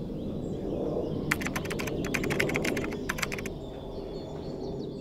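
A quick, irregular run of sharp clicks like keys being typed, lasting about two seconds, over a steady low rumble of background noise.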